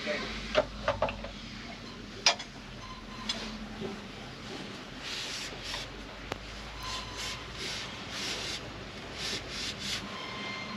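Hand work on a boat's engine and shaft coupling: a few sharp clicks and knocks in the first couple of seconds, then a run of about ten short rubbing or scraping strokes, with a faint low hum underneath.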